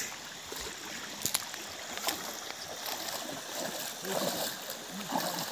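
Running river water, a steady rushing wash, with a few sharp clicks and knocks.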